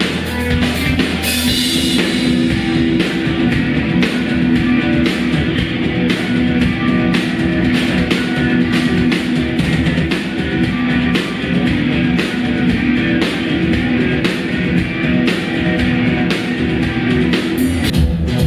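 Rock music with guitar and a drum kit keeping a steady beat, with no singing.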